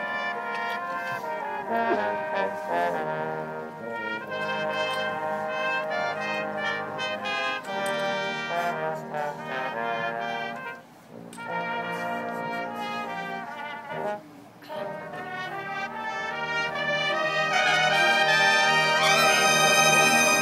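College marching band, brass-heavy, playing sustained chords, with two brief breaks in the sound partway through. It swells louder over the last few seconds, with a rising glide in pitch near the end.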